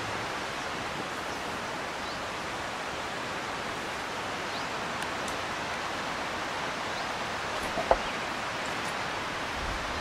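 Steady, even rushing noise of the open air, with one short knock about eight seconds in.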